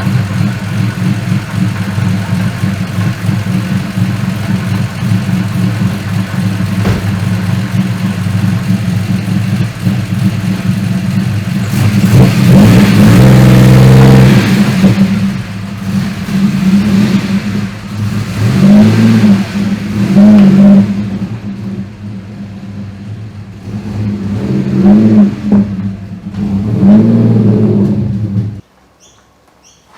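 Turbocharged Holden Commodore V6 running at idle, then revved hard for about two seconds and blipped four or five more times. The engine sound stops abruptly near the end.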